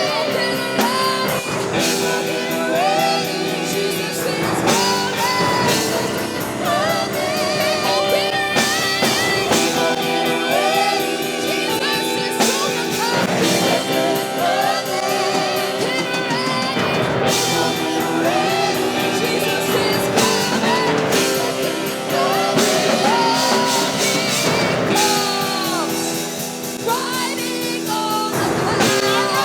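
Worship song: a singer over a band with drums and guitar, playing continuously.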